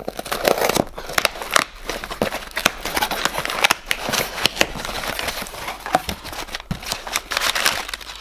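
A key scraping along and slitting the packing tape on a cardboard box, then the cardboard flaps being pulled open and crumpled paper packing rustling and crinkling as it is pulled out near the end.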